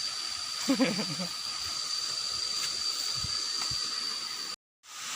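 Steady hiss of running water from a stream, with a thin, steady high-pitched whine over it. A brief low voice sound comes about a second in, and the sound cuts out completely for a moment near the end.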